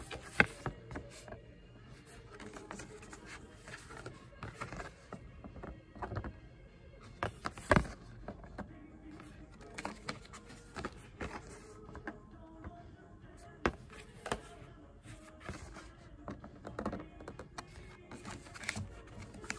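Cardboard box and paper cards being handled on a glass tabletop: irregular taps, clicks and light knocks, the sharpest about half a second in and near eight seconds, over faint background music.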